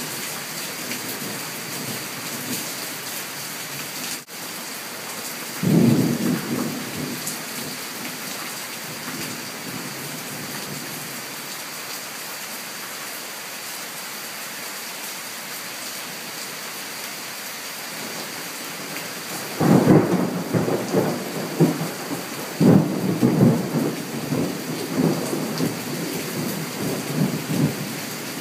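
Summer thunderstorm: steady heavy rain hissing down on trees, with a sudden clap of thunder about six seconds in that rumbles away over a couple of seconds, then a longer rolling peal of thunder from about twenty seconds in, rumbling on with several loud cracks to the end.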